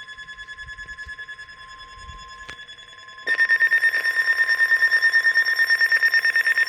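NOAA weather radio alert sounding for a tornado watch: a steady warning tone under a weather radio receiver's rapid pulsing alarm beep. About three seconds in the beeping jumps much louder.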